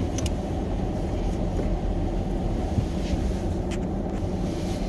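Steady low rumble of a vehicle engine running, with a few faint clicks over it.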